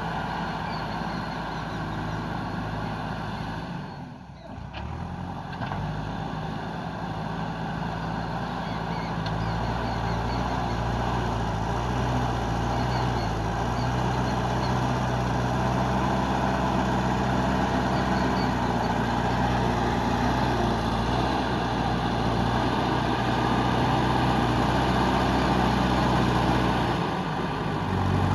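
JCB 3DX backhoe loader's diesel engine running steadily. Its sound dips briefly about four seconds in, then runs louder from about nine seconds on.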